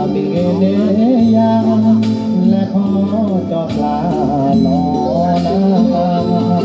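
A man singing into a microphone over amplified backing music, heard through a PA system.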